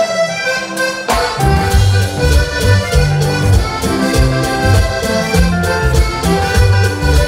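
Live Panamanian música típica band playing, accordion-led, with a metal güiro scraping and congas. About a second in, the full band comes in with bass and drums.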